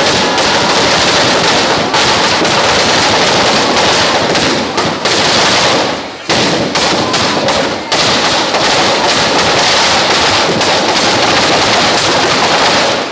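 A long string of firecrackers going off in rapid, dense crackling bursts inside a burning model palace, with two brief lulls about halfway through.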